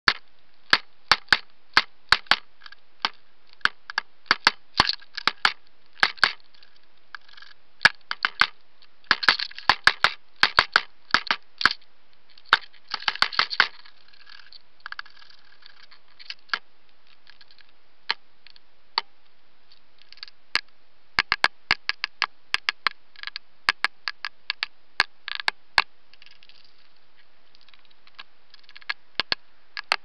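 Woodpecker pecking at a trail camera's housing right at its microphone: sharp, irregular knocks in quick runs, with a sparser stretch past the middle. Pecking like this is what breaks these cameras, holing the infrared sensor window so water gets in.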